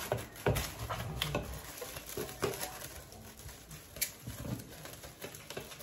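Plastic cling film crinkling and rustling as it is pulled from its roll and stretched over a bowl, with a few sharp crackles.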